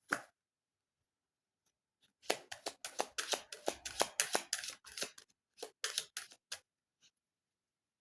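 Tarot cards being shuffled and handled: one click at the start, then a quick run of sharp card clicks for about three seconds, and a few more shortly after.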